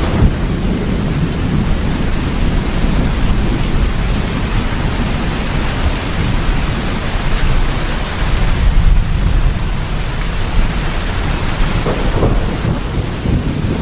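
Steady heavy rainfall with a deep, rolling rumble of thunder underneath that swells and eases.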